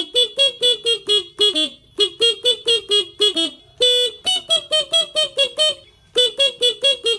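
Basuri telolet horn playing a quick melody of short toots, about four a second, stepping up and down in pitch, in phrases with short breaks between them.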